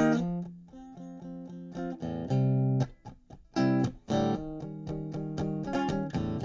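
Electric guitar playing an instrumental passage of chords, some let ring and some cut short, with brief gaps between them.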